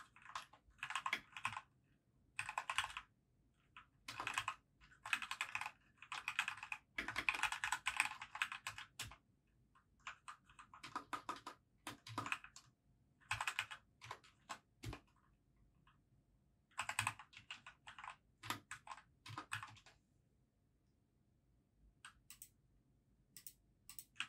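Typing on a compact mechanical keyboard: quick runs of keystrokes in bursts with short pauses between, thinning out near the end to a few single key presses.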